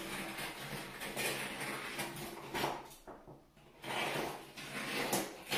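Knife blade scraping and cutting along an old bead of caulk at the joint between the tile wall and the bathtub. The scraping strokes pause briefly about three seconds in, then start again.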